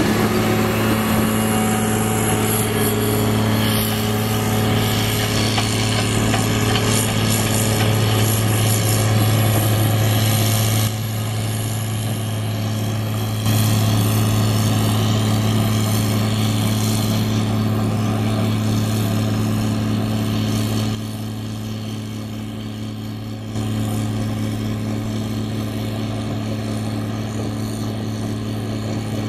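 John Deere 670G motor grader's diesel engine running steadily as the machine drives along a dirt road, a strong low hum whose level jumps abruptly a few times.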